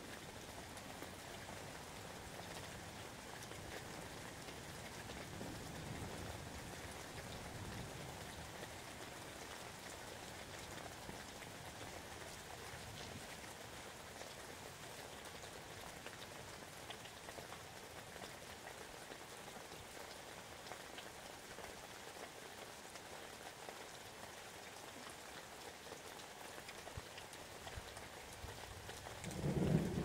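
Steady rain falling in a thunderstorm, with a faint low rumble of thunder a few seconds in and a louder thunder rumble starting just before the end.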